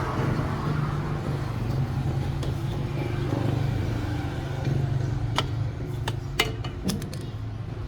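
Car engine running steadily, with a few sharp clicks or taps in the second half.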